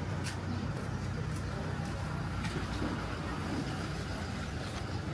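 A steady low engine hum, with a few faint sharp clicks scattered through it.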